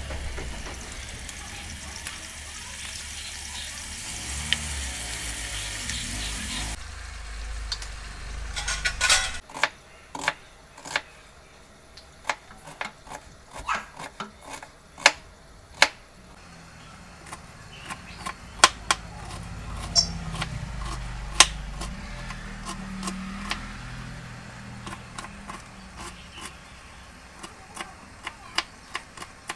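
Boneless chicken pieces sizzling in hot oil in a frying pan, a steady hiss that cuts off abruptly about seven seconds in. Then a knife chopping onion and cabbage on a wooden chopping board: sharp, irregular chops, some close together, others spaced out.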